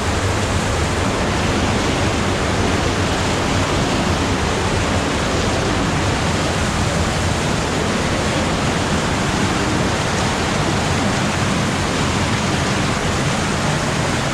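Steady, loud rush of a spring-fed underground river pouring through a cave.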